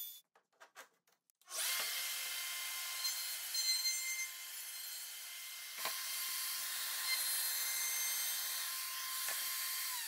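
DeWalt router with a round-over bit starting up about one and a half seconds in and running with a steady high whine while it rounds over a plywood edge. Near the end it is switched off and the whine falls as the motor spins down.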